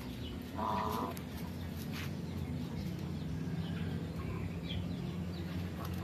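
Farmyard poultry calling: one loud call of about half a second near the start, then scattered fainter short calls and clicks over a steady low hum.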